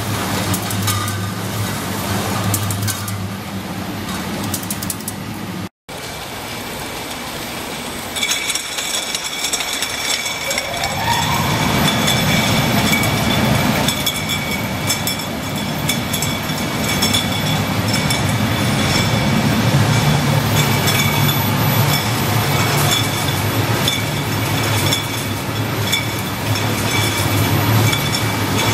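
Bottle case-packing machine running, its conveyors and packing mechanisms giving a steady mechanical hum and rattle. There is a momentary break about six seconds in. After that a steady high whine runs over the hum, with a short rising tone near eleven seconds.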